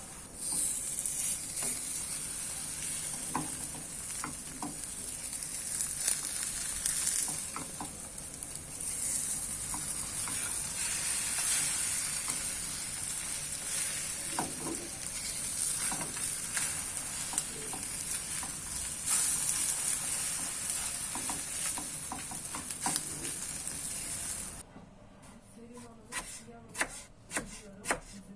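Food sizzling as it fries in a hot pan, with scattered clicks of a utensil stirring it. The sizzle cuts off suddenly near the end, followed by a few knocks.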